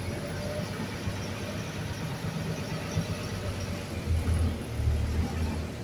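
A river ferry's engine running steadily with a low hum while the boat is under way, over the rush of water and wind. The engine gets louder about four seconds in.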